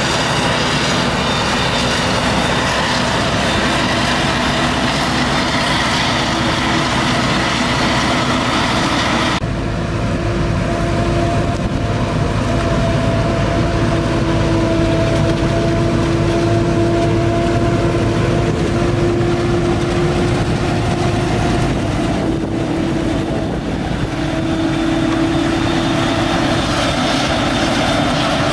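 Claas Jaguar 950 self-propelled forage harvester running under load while chopping maize, a steady machine drone with held tones, mixed with the engine of the tractor hauling the trailer alongside. The sound changes abruptly about nine seconds in, then runs steady again.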